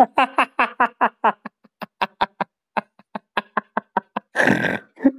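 A man laughing in quick, rhythmic bursts that trail off into short, thin pulses. About four seconds in comes a loud, breathy, snort-like burst.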